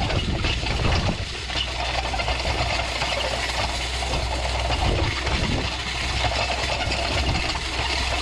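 Tractor engine running steadily while pulling a hay rake.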